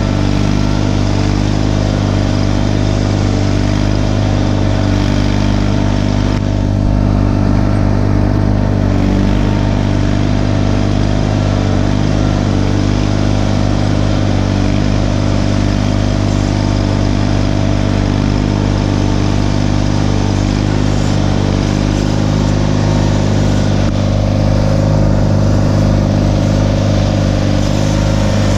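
Garden tractor engine running loudly and steadily at a constant speed, its pitch holding level throughout.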